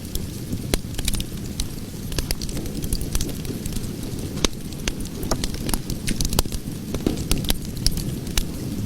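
Cooking fire burning with a steady low rush and frequent sharp crackles and pops, several a second at irregular intervals.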